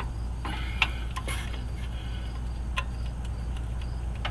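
A few scattered light metallic clicks and ticks from a wrench working the exhaust collector flange bolts, tightening them a bit at a time to crush the new gasket down evenly. A steady low hum runs underneath.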